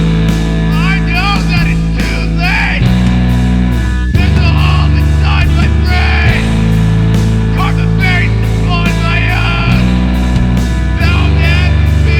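Rock song with distorted electric guitar, bass and a steady drum beat, and a voice singing over it.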